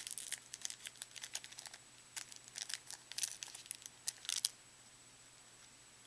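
Foil trading-card pack wrapper crinkling and tearing as a pack is opened, in quick irregular crackles that stop about four and a half seconds in.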